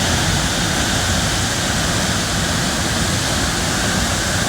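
Loud, steady rushing of a waterfall.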